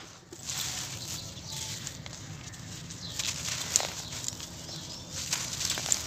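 Dry sand-cement lumps crunching and crumbling in bare hands, with loose grit trickling out onto the dusty pile; a few sharper crackles come in the second half.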